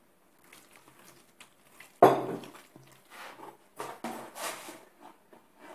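Kitchen handling noises as gloved hands mix raw chicken pieces with seasoning in a plastic bowl: a sharp knock about two seconds in, then irregular clatter and rustling.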